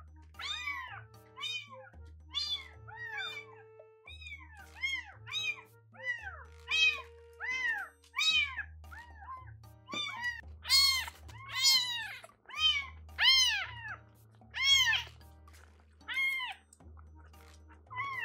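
Bottle-fed newborn kitten mewing over and over, high cries that rise and fall in pitch, about one to two a second and loudest in the middle: a hungry kitten crying for milk. Soft background music runs underneath.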